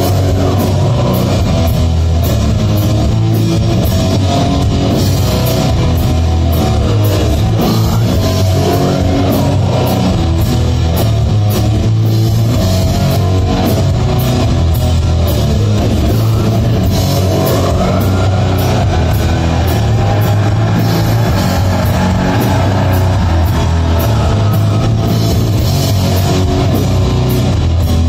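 Sludge metal band playing live and loud: heavily distorted electric guitars and bass over a pounding drum kit with steady cymbal hits.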